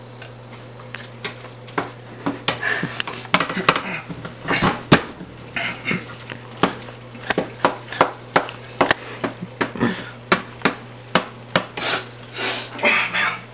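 A black plastic spoon knocking and scraping against a stainless-steel pot as ground beef is stirred, in irregular sharp taps about once or twice a second.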